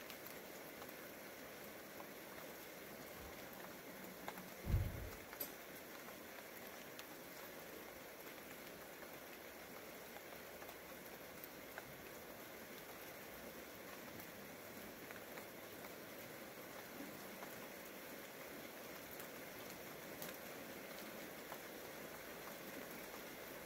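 Rain falling steadily, a faint even hiss with scattered small drip ticks. One dull low thump comes about five seconds in.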